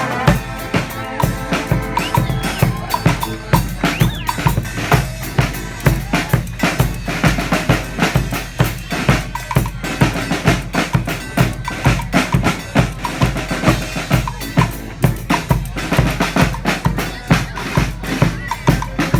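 Street marching band playing live: horns holding pitched lines over a busy, steady drum beat of bass drum and snare.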